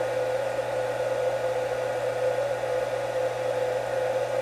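Steady whooshing of a fan or blower running, with a steady mid tone and a low hum under it.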